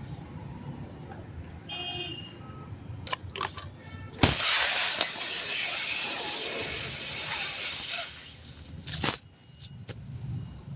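Compressed air hissing loudly in a tubeless tyre repair. It starts suddenly about four seconds in and runs for about four seconds, and a second short blast comes about nine seconds in.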